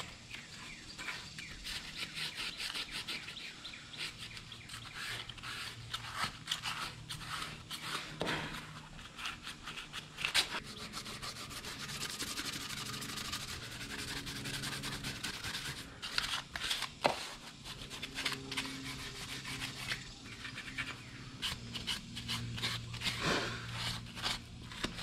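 A green abrasive scuff pad is scrubbed by hand over the bare aluminium of a Honda K20 engine block, making a quick, scratchy back-and-forth rubbing in short strokes. The surface is being scuffed to prepare it for paint.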